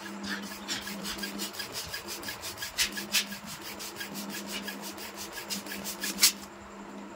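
Red latex balloon being inflated on a balloon pump: a fast, even run of rasping strokes, about six a second, with the loudest stroke just after six seconds in, then it stops.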